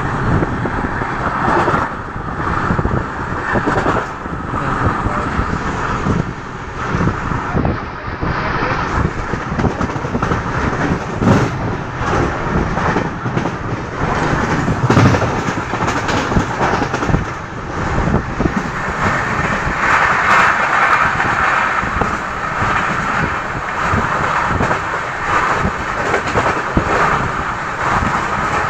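Passenger train running at speed, heard from inside the coach by the window: a steady rush of wheel and wind noise with frequent knocks from the wheels on the track. It grows louder in the last third, when a second train passes close alongside.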